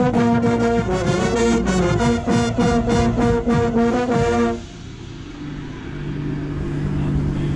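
Drum corps brass line playing loud sustained chords, with the euphonium right at the microphone and regular percussion strikes beneath. The music cuts off sharply about four and a half seconds in, leaving a quieter low steady tone.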